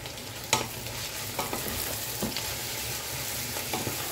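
Wooden spatula stirring spinach through hot palm oil and onions in a stainless steel saucepan: a steady sizzle with a few short knocks of the spatula against the pan.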